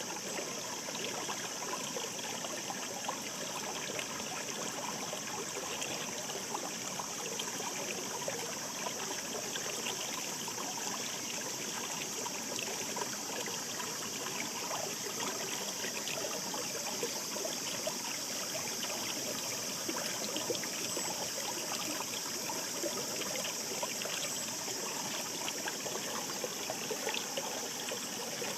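Mountain stream murmuring steadily, a constant rush of water flecked with many small splashes and trickles.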